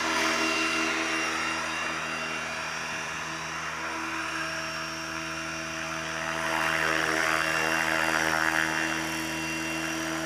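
Gaui X5 electric RC helicopter's motor and rotor blades whining at a steady pitch. About six seconds in, a louder rushing of air rises over the whine for a few seconds.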